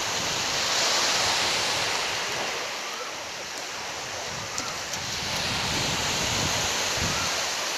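Small waves breaking and washing up a sandy beach: a steady surf hiss that swells and eases.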